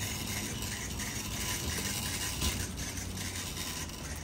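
Metal shopping cart rolling over a smooth concrete floor: a steady rolling noise with light rattling from its wheels and wire basket.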